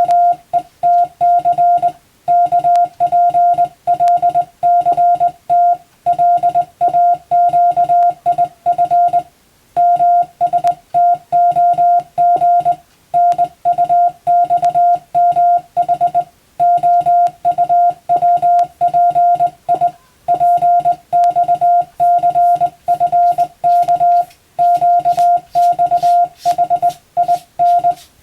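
Morse code sent by hand on a telegraph key and heard as a single steady beep. The beep is keyed rapidly on and off in dots and dashes, and the characters run together in groups with brief pauses between them.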